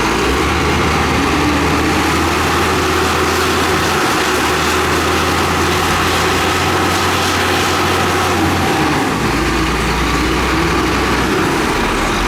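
Heavy diesel engine of earth-moving equipment (road roller or motor grader) running steadily under load, its engine speed shifting about four seconds in and again near nine seconds.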